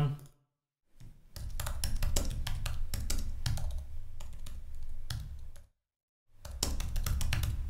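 Typing on a computer keyboard: a run of quick key clicks starting about a second in, a short pause about three-quarters of the way through, then more typing.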